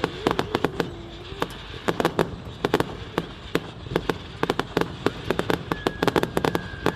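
Fireworks going off: a rapid, irregular string of sharp bangs and crackles, with a steady high tone joining in near the end.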